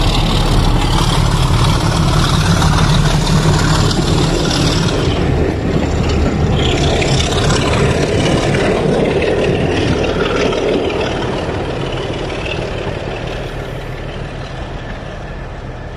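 Heritage passenger train of green carriages rolling past and pulling away: a steady rumble of wheels on rails that fades gradually through the second half as it moves off down the line.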